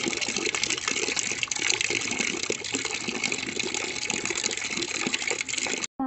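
Thin stream of water from a standpipe tap splashing into a plastic bucket as it fills, a steady pouring sound. It cuts off abruptly near the end.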